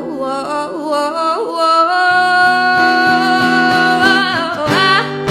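Solo voice singing to a strummed acoustic guitar, the melody settling into one long held note in the middle before moving on near the end.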